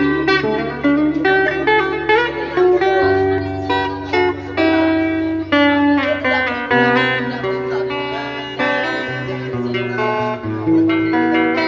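Background music: an instrumental stretch of a song, with plucked guitar notes over held bass notes that change every couple of seconds.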